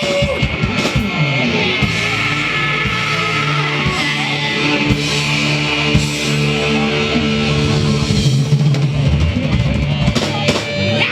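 Rock band playing: electric guitar and bass over a drum kit.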